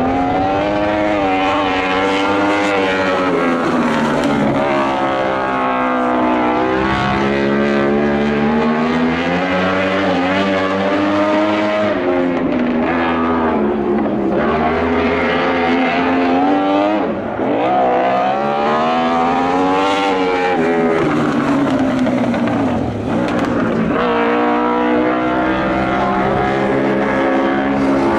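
Lightning sprint car engine at racing speed on a dirt oval. Its pitch climbs, then drops back several times, a few seconds apart, as it accelerates down the straights and lifts for the turns.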